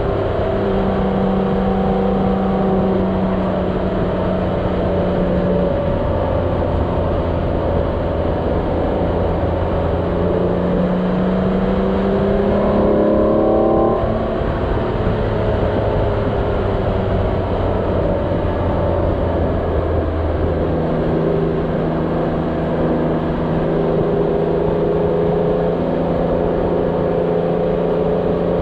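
Motorcycle engine running under way, with wind noise. The engine pitch climbs as it accelerates about halfway through, drops abruptly at a gear change, then settles to a new steady pitch near the end.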